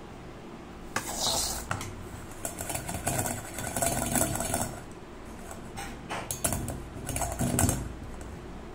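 A metal spoon scraping and pushing rice flour through a stainless steel mesh sieve, in three bouts with sharp metallic clicks of spoon on mesh and rim.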